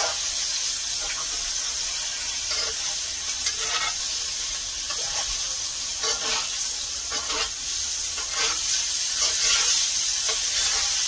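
Ribeye steaks and melted butter sizzling steadily in a tilted cast iron skillet while the butter is spooned over them, with short scrapes of the spoon in the pan every second or so.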